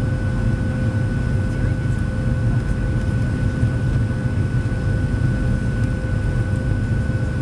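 Cabin noise of a Boeing 737-700 in flight, heard from a seat over the wing: the CFM56 turbofans give a steady low rumble with two steady whining tones on top.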